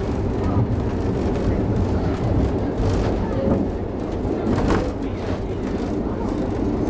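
Moving passenger carriage of a vintage train heard from inside at an open window: a steady low rumble of wheels running on the rails, with a couple of brief sharper clicks about three and nearly five seconds in.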